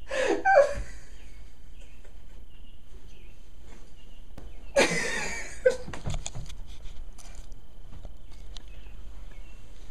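A short loud cry right at the start, then about five seconds in a loud yell with a crash, followed by a run of sharp clanks and knocks as pots and pans are banged together.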